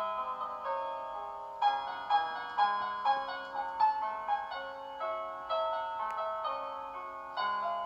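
Background piano music: a gentle melody of single struck notes over held low notes.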